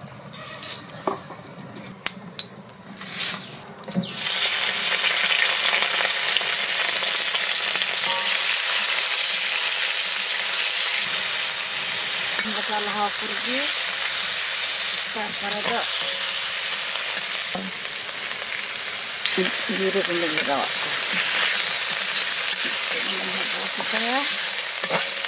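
Pieces of kuchia (freshwater mud eel) frying in hot oil in an iron kadai: a loud, steady sizzle that starts suddenly about four seconds in, after a few crackles from the heating oil, while a metal spatula stirs the pieces.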